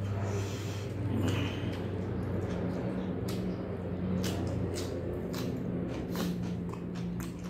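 Close-up eating sounds: wet chewing and irregular lip-smacking clicks as a man eats rice with meat curry and a bite of cucumber by hand. A steady low hum runs underneath.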